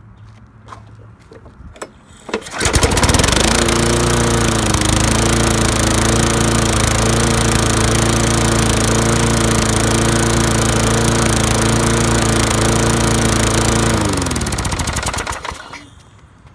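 Lawn-Boy Silver Series push mower's Tecumseh 5.5 hp engine starting up after sitting for a couple of months: it catches about two and a half seconds in, picks up speed, and runs steadily for about eleven seconds. It is then shut off and winds down, its pitch falling as it stops.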